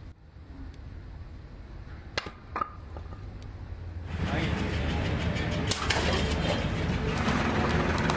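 A kukri blade chops a standing wooden block with two sharp knocks under half a second apart, about two seconds in. About halfway through, a louder, steady noisy background with scattered clicks takes over.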